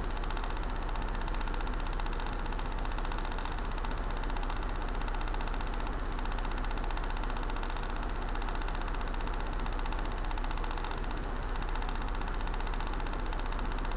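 Kymco Dink Street scooter's single-cylinder four-stroke engine idling steadily, fully warmed up after several minutes of running.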